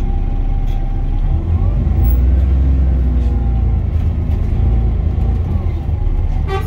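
Inside a VDL DB300 Wright Gemini 2 double-decker bus under way: heavy low engine rumble with the whine of its Voith automatic gearbox rising and falling as the bus drives along. A short sharp click rings out near the end.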